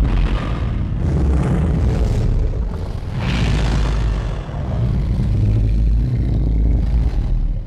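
Designed Godzilla growl sound effect: a loud, deep rumbling growl with a raspy swell about three seconds in, dying away at the end.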